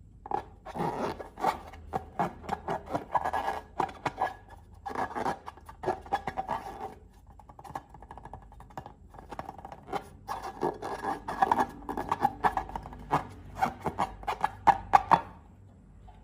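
Slime being worked by hand: rapid sticky clicks and crackles, in two busy spells with a quieter stretch in the middle, stopping shortly before the end.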